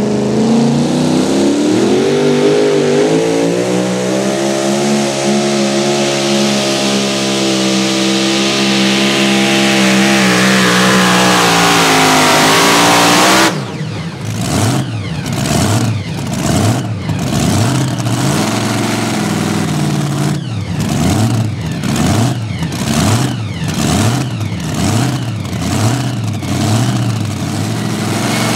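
Supercharged engine of a super modified two-wheel-drive Chevrolet pulling truck at full throttle under the sled's load, the revs climbing, holding and then sagging a little. About 13 seconds in the throttle is chopped suddenly, and the engine drops to a lumpy, pulsing idle.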